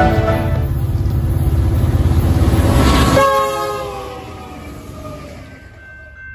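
Diesel locomotives of a double-stack container freight train passing close at speed, engines loud, with the air horn sounding. About three seconds in, the lead units go by and the horn's pitch drops, then the sound fades as the train moves away.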